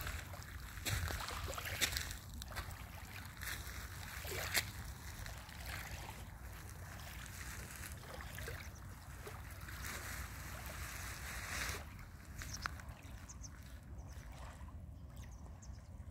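Small waves lapping gently on a pebble shore, with short splashy clicks every second or two in the first few seconds, under a low rumble of wind on the microphone.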